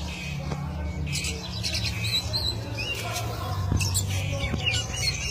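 Oriental magpie-robin (kacer) singing in full song: a quick run of harsh rasping notes mixed with short whistled phrases, over a steady low hum.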